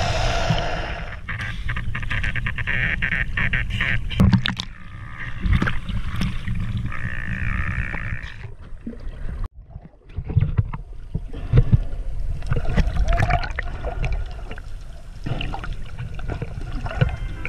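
Sea water sloshing and rushing against an action camera held by a snorkeler as it dips under and breaks the surface. There is a muffled, uneven underwater rumble with knocks and splashes, and the sound briefly drops out about halfway through.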